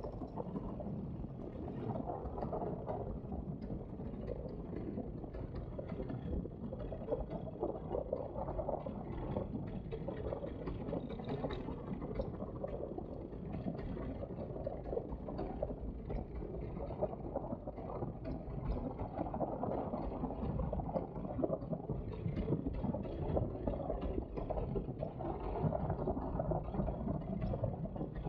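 Wind buffeting the microphone in paramotor flight: a rough, uneven low rumble with no clear engine tone standing out.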